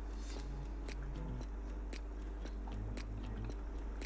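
A person chewing a mouthful of burger with a tortilla-chip-crusted chicken patty and crispy cheddar chips: many small, irregular crunches.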